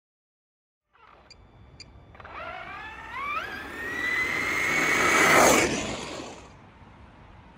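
Losi DBXLe 1/5-scale electric buggy driving up and past: its brushless motor whine climbs in steps and then rises steadily. It is loudest about five and a half seconds in, with a rush of tyre noise on brick pavers, then fades quickly.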